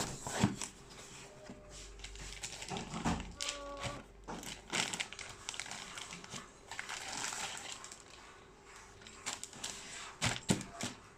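Packaging being handled: irregular rustling and crinkling with clicks and taps. A brief squeak comes about three and a half seconds in.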